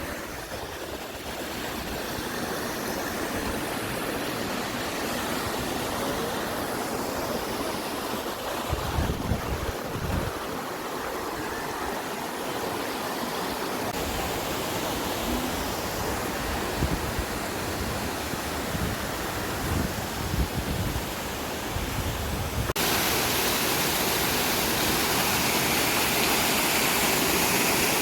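Steady rushing water of a Black Forest waterfall, with occasional low rumbles of wind on the microphone; about 23 seconds in the water abruptly gets louder and brighter.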